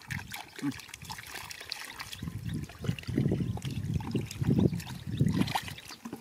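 Hands splashing and sloshing in shallow muddy water while groping for fish, in irregular bursts that come thicker from about halfway through.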